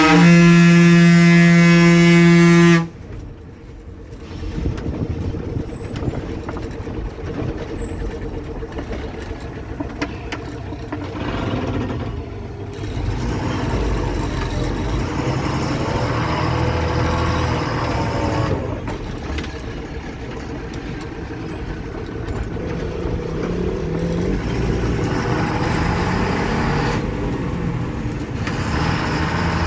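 A bus horn blares in one long, steady honk of about three seconds. The bus's diesel engine then runs on under load with road and cab rattle noise as it works along a winding road.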